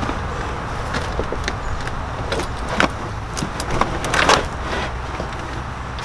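Knocks and scrapes of a heavy carpeted pine-and-plywood sleeping platform being flipped up and pulled out of an SUV's cargo area, a run of separate knocks with the loudest about four seconds in, over a steady low hum.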